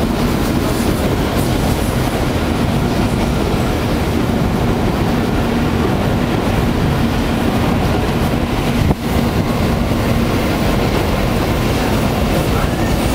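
Shinkansen train running along an elevated viaduct: a loud, steady rumble with a steady hum, briefly broken about nine seconds in.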